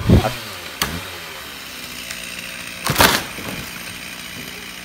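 A vehicle driving past, its engine pitch falling through the first second, with a short click, then a sharp clatter about three seconds in.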